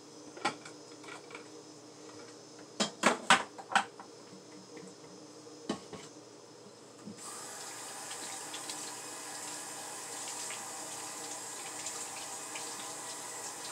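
A few sharp knocks and clatters, loudest about three seconds in, then a kitchen sink tap turned on about seven seconds in and running steadily into the sink for hand-washing.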